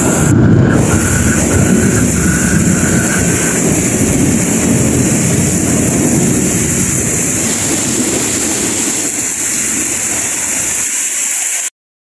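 Heavy rain pouring down steadily, with a stream of roof runoff splashing onto concrete close by and a low rumble underneath. The low rumble eases shortly before the sound cuts out briefly near the end.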